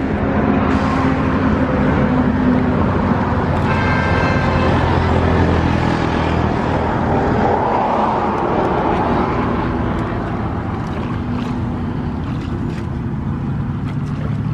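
A motor running steadily with a low hum. A brief high, horn-like tone sounds about four seconds in.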